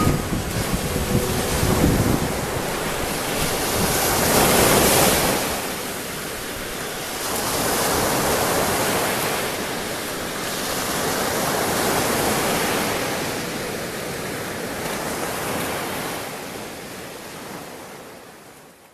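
Waves breaking and washing up a sandy beach, swelling and ebbing every few seconds, with wind buffeting the microphone in the first couple of seconds. The sound fades out near the end.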